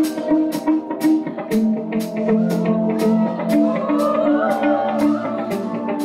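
Live band playing a song's instrumental intro: acoustic guitar and drum kit, with sharp cymbal-like hits keeping a steady beat of about two a second over held chords.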